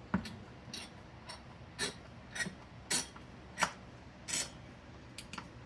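Spring-loaded CPU heatsink mounting screws being tightened: the springs under the screw heads click as the screws turn, about ten sharp clicks, roughly two a second.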